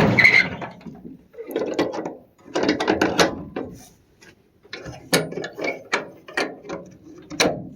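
Irregular clattering clicks and knocks in uneven clusters, sharper and more scattered in the second half.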